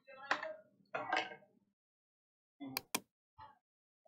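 Clicks from working a computer's mouse and keyboard: a few soft, muffled knocks in the first second and a half, then two sharp clicks in quick succession about three seconds in.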